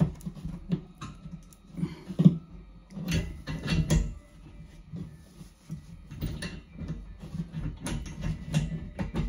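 Hands working pipe fittings at a hole in a plasterboard wall: irregular clicks, knocks and scrapes, the loudest about two and four seconds in, over a low steady hum.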